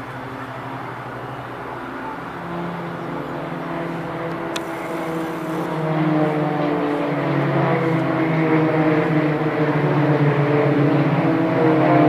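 KT-1B Woong Bee turboprop trainers flying overhead in formation, a steady propeller and engine drone that grows louder about halfway through as the aircraft pass closer.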